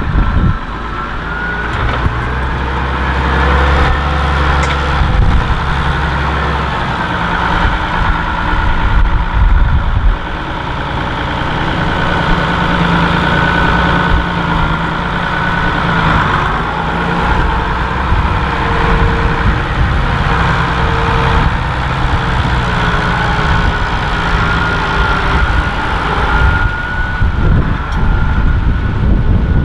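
Large farm tractor's engine running under load as it works close by pulling a reversible plough, its note shifting in pitch, with a steady high whine over it.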